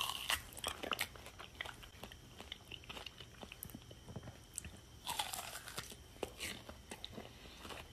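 A person biting into and chewing an apple close to the microphone: repeated crunches throughout, with a louder run of crunches about five seconds in.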